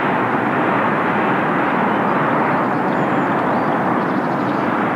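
Steady rushing noise with no pitch, even in level throughout.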